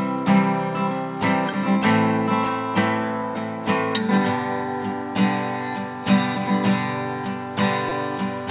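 Acoustic guitar strummed and picked, chords ringing, as the instrumental opening of a song before the singing begins.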